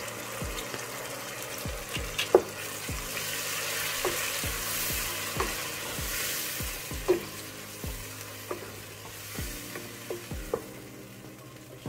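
Blended tomato and bell pepper sizzling in hot oil on browned onions in a stainless steel pot, stirred with a wooden spoon that knocks against the pot every second or so. The sizzle is strongest in the middle and dies down toward the end.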